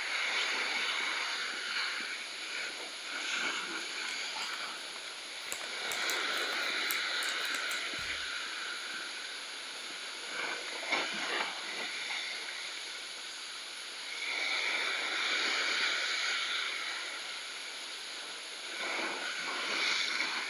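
Sea surf washing against rocks, swelling and easing every several seconds. A few short clicks come about halfway through.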